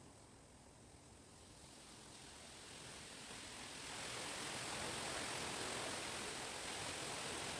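Wind gusting through chestnut trees: a rustling hiss of leaves and branches that swells over a couple of seconds and stays strong near the end.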